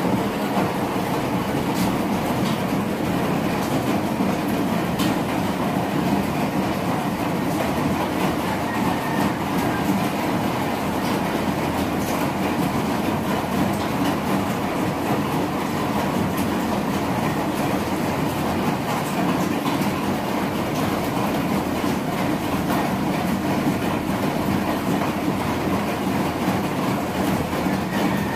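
Steady whirring rumble of a small home egg incubator's fan, running without a break, with a few faint ticks.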